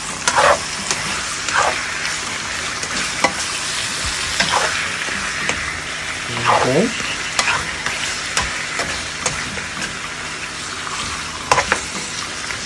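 Raw chicken pieces sizzling in hot olive oil in a nonstick pan, with a plastic spoon stirring and scraping them among sautéed garlic and onions. Under the steady sizzle come short scrapes and knocks of the spoon every second or so.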